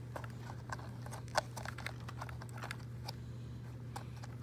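Fingers handling thin wires and a small plastic plug connector: irregular light clicks and ticks, one sharper click about a second and a half in, over a steady low hum.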